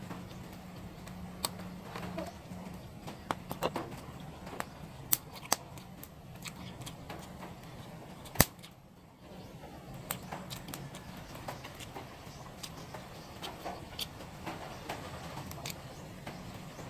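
Eating sounds: scattered clicks and smacks as a person chews fried milkfish and rice and picks at it by hand from a plate, with one sharper click about eight seconds in. A faint steady low hum runs underneath.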